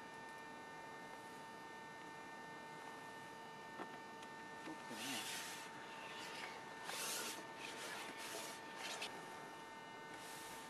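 Faint, steady electrical hum, with a few short hissing rustles about five, seven and nine seconds in.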